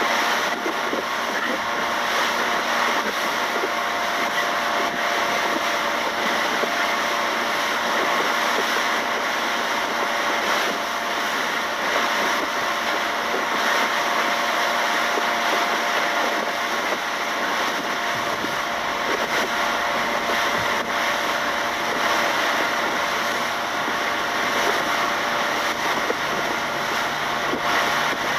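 A fishing speedboat's engine running steadily at an even level, with a faint steady hum in it.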